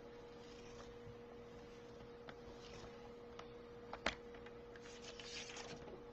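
Quiet handling of card stock on a paper trimmer over a steady faint electrical hum: a few soft ticks, one sharp click about four seconds in, then a light rustle of the sheet near the end.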